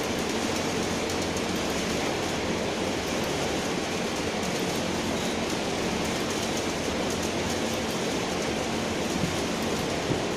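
Steady background noise with a faint low hum, like ventilation or machinery running in a workroom.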